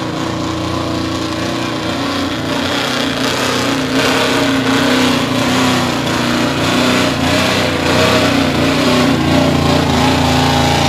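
Small-block V8 pickup engine at high revs under full load, dragging a weight-transfer pulling sled: a loud, steady engine drone that gradually gets louder.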